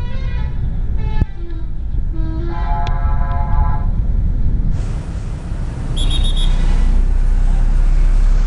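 Multi-tone 'telolet' bus horns playing short tunes of changing notes over a steady diesel rumble. About five seconds in, a loud steady rushing noise takes over, with a brief rapid beeping tone just after.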